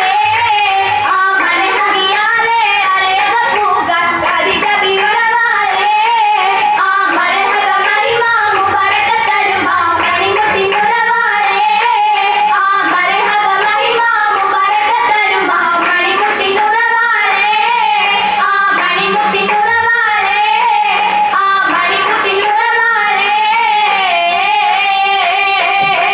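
Oppana song: a chorus of girls singing a Mappila song through a PA system, with rhythmic handclaps keeping the beat.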